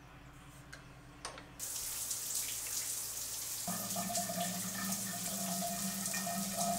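Shower turned on: spray of water starts hissing about a second and a half in and keeps running steadily. A steady hum joins under the water a little past the middle.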